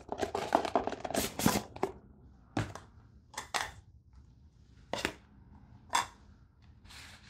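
Small containers and packaging handled on a tabletop: a quick run of rattling clicks in the first two seconds, then about five separate clicks and taps a second or so apart.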